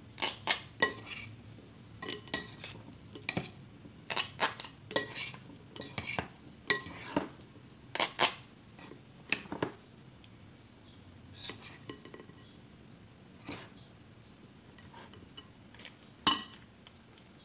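A fork and plastic spoon stirring and tossing chicken and potato salad in a glass mixing bowl. The utensils clink irregularly against the glass, thickly for the first ten seconds and more sparsely after, with one louder clink near the end.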